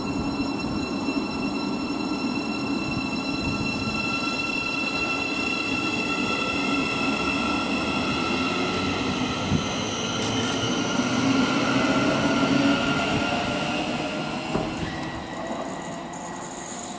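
Thameslink Class 700 electric multiple unit moving slowly along the platform: a rumble of wheels on rail with several steady high whining tones over it. The sound fades near the end.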